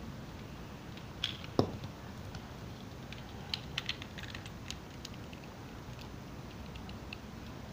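Plastic Lego pieces clicking and rattling as they are handled and snapped together by hand: scattered small clicks, the loudest pair about a second and a half in, and a quick run of clicks around the middle.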